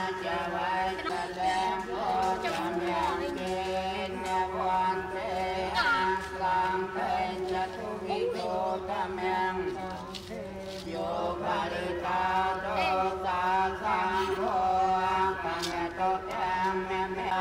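Several voices chanting Buddhist prayers together in a steady recitation.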